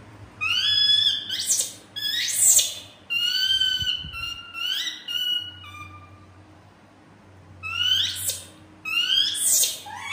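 Baby monkey's high-pitched calls: a run of rising cries, some held steady for a moment, then a pause of about two seconds and two more cries near the end.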